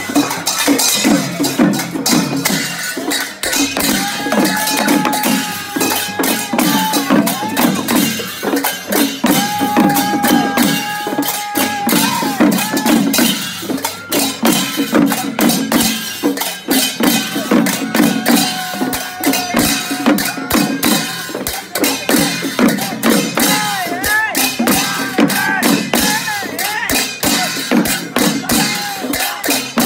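Procession music of Newar hand cymbals clashing in a fast, steady beat over drumming, with crowd voices calling out held notes on top.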